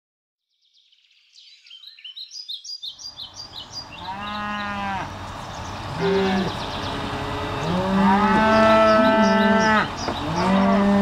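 Several cattle mooing, one long call after another and sometimes overlapping, with the longest call about two seconds. A quick run of high chirps comes before the mooing begins.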